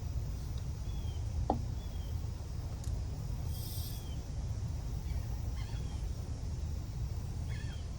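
Steady low rumble with short, high bird chirps scattered through it, and a single sharp click about a second and a half in.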